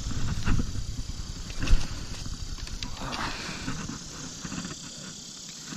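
Rumbling and rustling of a just-landed bass being handled on grass, with scattered knocks and one sharp thump a little under two seconds in.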